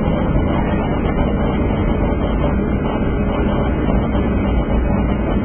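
Steady loud rumble inside the cabin of a Boeing 757 rolling out on the runway after landing: engine noise and the rumble of the wheels on the runway as the jet slows.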